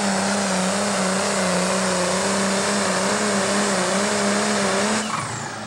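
Pro Stock pulling tractor's diesel engine running steadily at full power under load as it drags the sled, then backing off sharply about five seconds in as the pull ends, leaving a high whine falling away.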